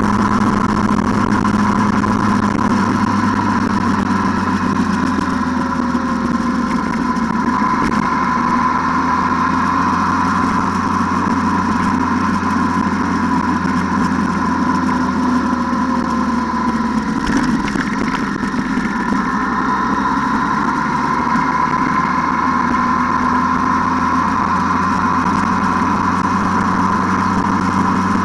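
ATV engine running steadily at an even speed, with no marked revving.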